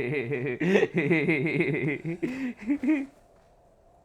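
A person's voice making a drawn-out vocal sound with a rapidly wavering, shaky pitch, stopping about three seconds in.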